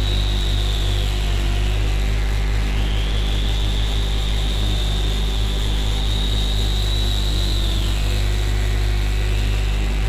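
Lumanoise v4 experimental noise instrument droning, a low hum under a noisy hiss, played through a Memory Man delay with plate reverb. A resonant filter sweep moves a whistling band up and down: high at first, dropping about a second in, climbing again near three seconds and holding, then falling near the end.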